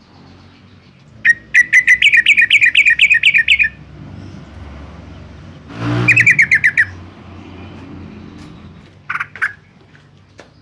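Yellow-vented bulbul calling: a rapid chattering run of sharp, rising notes, about six a second, then a second shorter run after a low rough noise, and a couple of brief calls near the end.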